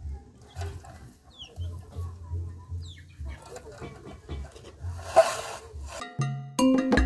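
Chickens clucking and birds chirping faintly in the background, with a brief rustling noise about five seconds in; background music with plinking percussive notes starts about six seconds in and quickly becomes the loudest sound.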